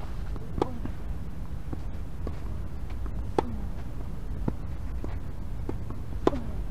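Tennis rally: three sharp racket-on-ball strikes a little under three seconds apart, with fainter knocks of the ball bouncing between them, over a steady low rumble.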